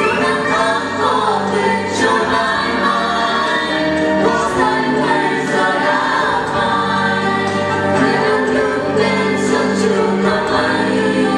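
Mixed choir of men and women singing a Vietnamese song together into microphones over a backing track, with sustained sung notes.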